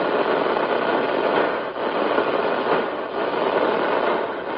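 Steady, loud radio static hiss from a receiver tuned to an emergency alert broadcast, with no clear voice coming through.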